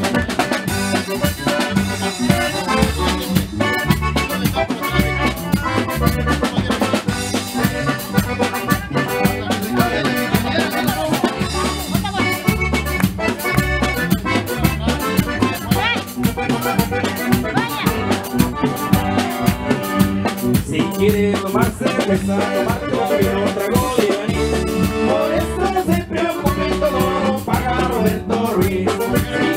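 Mexican regional dance music led by accordion over a bouncing bass line and drums, with a steady beat throughout.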